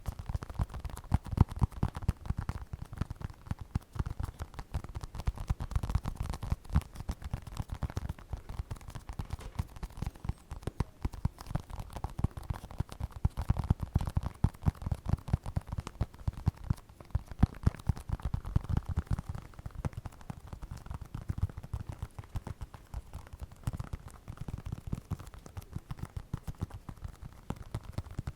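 Rapid, soft ASMR tapping and clicking, many small taps a second without a break.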